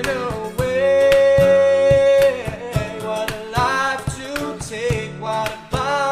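Background music: an acoustic duo's cover of a slow pop song, a voice holding long drawn-out notes over steadily strummed acoustic guitar.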